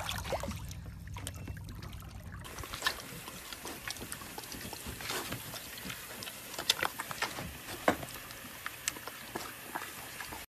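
Water sloshing for the first couple of seconds, then a small pig in a paddling pool grunting, with many short scattered clicks over a light hiss of water.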